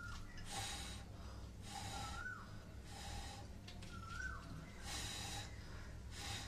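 A person breathing hard in about five short, noisy breaths, with two short squeaks in between and a steady low hum underneath.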